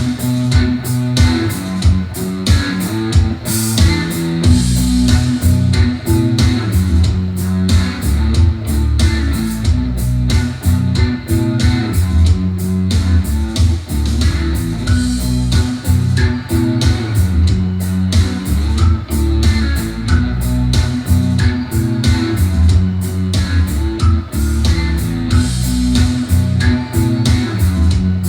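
Guitar-led music with bass guitar and a steady beat, played back through Edifier 1280 speakers driven by an FX Audio Tube 03 tube preamp as a sound test.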